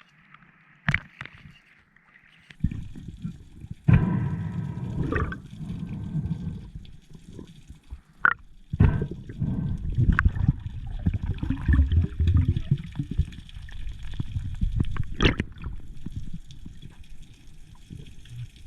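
Water sloshing and gurgling around an underwater camera, with uneven low rumbling and a few sharp clicks or knocks.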